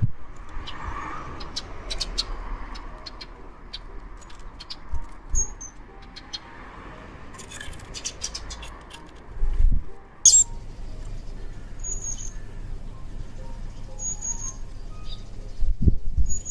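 Small wild birds chirping, short high notes a few times, among scattered sharp ticks. Low thumps come around the middle and again near the end.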